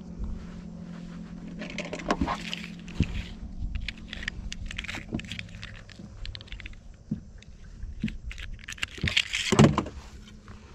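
Clinking, clicking and rattling of fishing tackle being handled while a lure is changed, with a steady low hum that fades about six seconds in.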